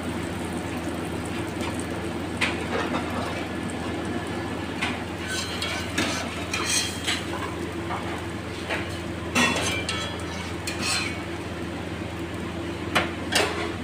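Kitchen background: a steady mechanical hum, with a handful of short clinks and knocks of utensils and dishes scattered through it.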